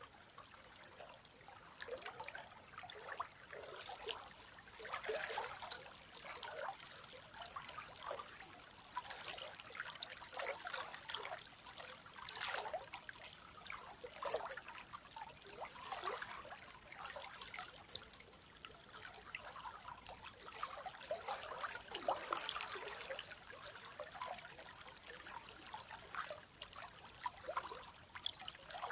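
River water flowing and trickling over stones, a steady babble of small splashes and gurgles.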